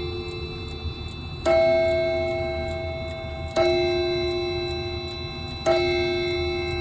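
Howard Miller clock's German 340-020 movement striking the hour on a chime rod: the same deep, ringing note three times, about two seconds apart, each dying away slowly. The movement ticks steadily underneath.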